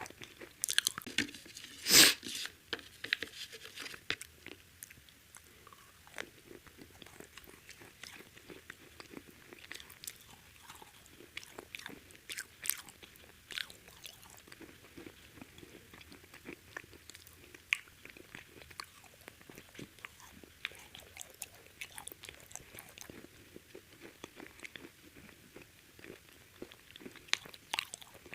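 Someone biting and chewing crispy fried chicken close to the microphone: irregular crackling crunches, the loudest a big bite about two seconds in, followed by quieter chewing crunches.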